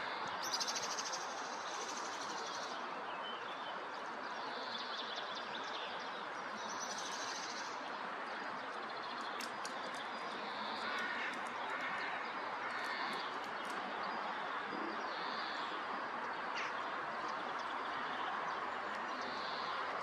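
Small birds chirping on and off over a steady hiss of outdoor background noise, with a run of faint sharp clicks about halfway through.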